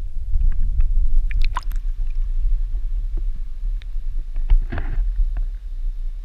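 A camera filming underwater picks up a muffled low rumble, with scattered clicks and knocks. About four and a half seconds in there is a short splash of water, just after the camera has come up out of the lake.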